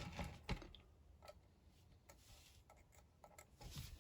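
Faint, scattered light clicks and ticks from a rotating grid soldering board being turned by hand.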